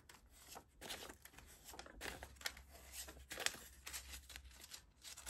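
Paper banknotes being counted out by hand: a faint, irregular run of short, crisp flicks and rustles as bills are peeled off a stack and shuffled.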